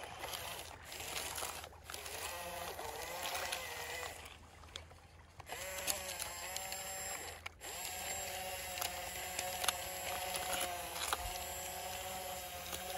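Small electric motors of a remote-control toy bulldozer whirring as its tracks and blade push through sand, with light clicking from the gears, pausing briefly a couple of times.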